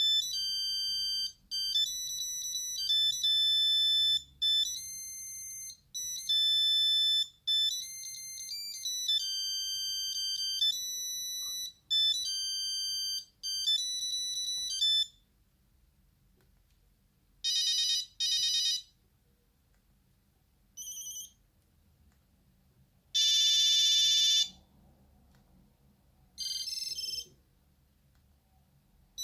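Nokia 8210 playing a monophonic ringtone: a quick melody of pure beeping electronic notes that stops about halfway through. It is followed by four or five short buzzy tone bursts, the longest and loudest of them lasting about a second.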